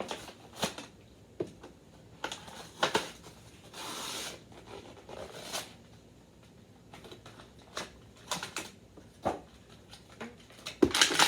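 Cardboard and plastic action-figure packaging being handled and opened: scattered crinkles and clicks, with a longer rustle about four seconds in.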